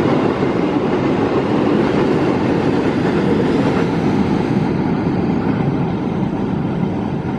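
Freight train of flat wagons and container wagons rolling along the track: a steady rumble of wheels on rail that slowly grows quieter in the second half as the train draws away.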